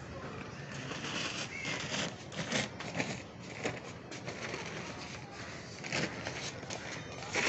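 Brown paper sack crinkling and rustling as it is carried and handled, in irregular short crackles.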